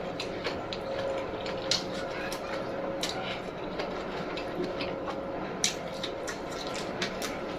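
Close-up chewing of a mouthful of food, with many small wet mouth clicks and smacks at an irregular pace.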